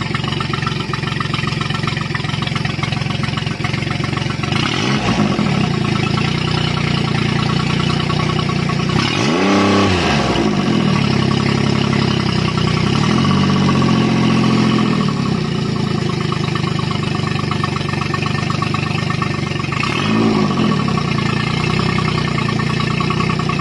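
Outboard motor running on flush muffs at a fast idle, revved up and back down several times, most strongly about ten seconds in.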